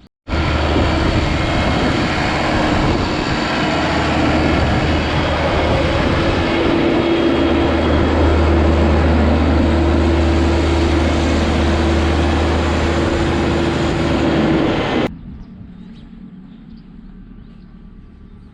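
Tractor engine running steadily at a constant pitch. It starts abruptly and cuts off suddenly about fifteen seconds in.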